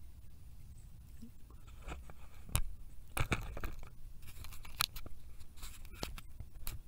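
Handling noise: a scatter of sharp clicks and knocks, several around the middle, as the camera or things on the table are moved, over a low rumble of wind on the microphone.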